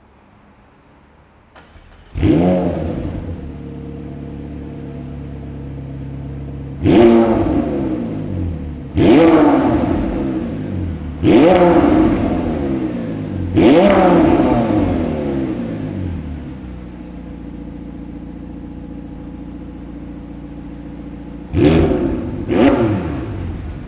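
McLaren 720S twin-turbo V8 starting with a flare of revs about two seconds in, settling to idle, then revved four times at even spacing, each rev falling back to idle, and blipped twice in quick succession near the end.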